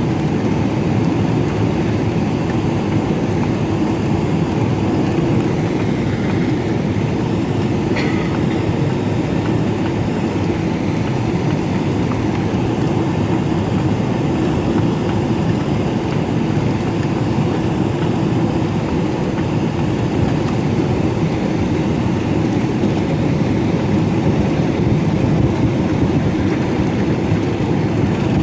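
Steady cabin noise inside a Boeing 777-200LR on final approach, from its GE90 engines and the airflow, heard from a window seat over the wing. A brief click sounds about eight seconds in, and the noise swells slightly near the end as the airliner comes over the runway.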